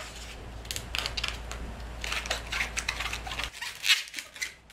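A latex twisting balloon being twisted and handled, the rubber rubbing in short irregular bursts, with the loudest one near the end.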